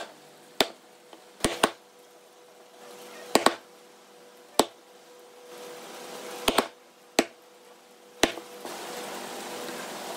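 Steel chisel being struck into a pine board to cut a groove: sharp knocks, singly and in quick pairs, every second or so, about ten in all. A faint steady hiss builds in the background near the end.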